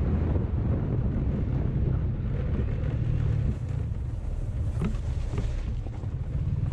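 Honda 125 Deluxe motorcycle riding along a gravel road: its single-cylinder engine runs under heavy wind rush on the microphone. The noise eases a little about halfway through and picks up again near the end.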